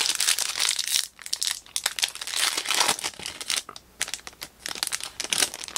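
A foil-wrapped Panini Select basketball card pack being torn open and peeled back by hand, its wrapper crinkling in several bursts with short pauses between.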